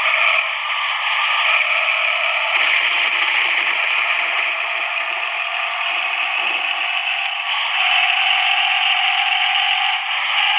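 A sound system under test giving out a loud, steady, rasping noise with no bass, the 'ngorok' (snoring) sound.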